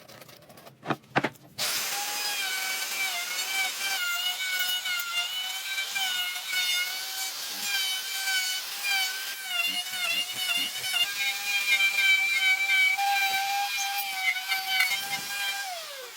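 Two short clicks, then a high-speed electric power tool starts and runs with a steady high whine and hiss, its pitch wavering slightly as it works the wood. Near the end the whine drops in pitch as the tool spins down.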